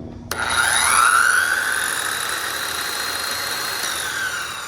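Corded electric saw switched on: its motor whine rises quickly in pitch, holds steady, then begins to fall near the end as the saw winds down. It is not getting full power from the truck's bed outlet.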